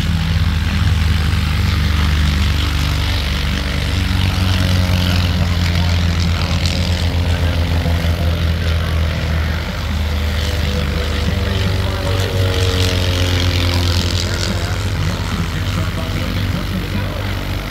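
Propeller airplane engine running close by: a steady low drone that pulses for a few seconds mid-way, with slowly falling tones in the second half as the aircraft moves.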